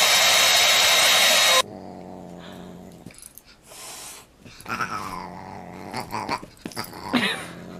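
A hand-held hair dryer running loud, cut off abruptly about one and a half seconds in. Then a dog and a Siamese cat play-fighting: scuffling with short growls and calls.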